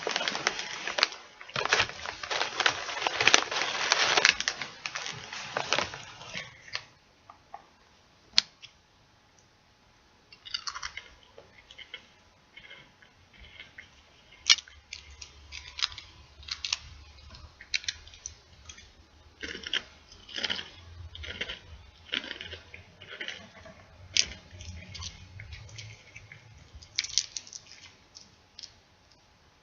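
Close-miked crinkling and crunching of a chip bag and chips. A dense stretch of crackling fills the first six seconds, then scattered crackles and sharp clicks follow.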